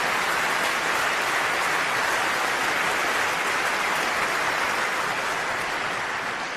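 A large concert-hall audience applauding steadily, the applause starting to die away near the end.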